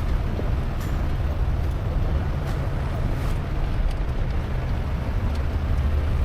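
Mitsubishi Pajero 4WD driving along, heard as a steady low engine drone and road noise with a few faint ticks and rattles.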